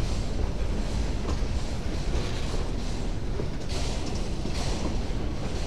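Empty freight wagons, boxcars and hopper cars, rolling past close by: a continuous heavy rumble and rattle of steel wheels on rail, with two brief brighter bursts of rattling about four and five seconds in.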